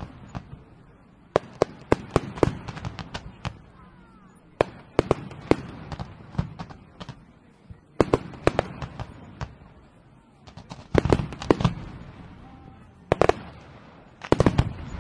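Fireworks going off: clusters of sharp bangs and crackles, a handful of reports in quick succession every second or two.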